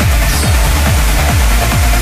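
Electronic dance music with a steady, pounding kick drum about twice a second under a dense synth backing.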